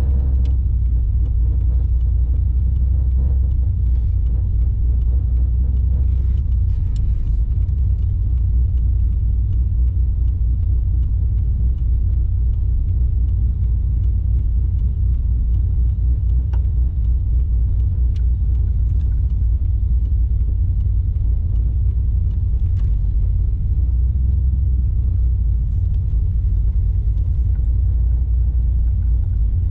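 Holden VZ Commodore SS V8 and road noise heard inside the cabin while driving slowly in traffic: a steady low rumble.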